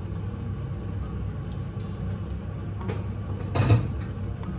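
A single sharp metallic clank of cookware being set down about three and a half seconds in, ringing briefly, over a steady low hum.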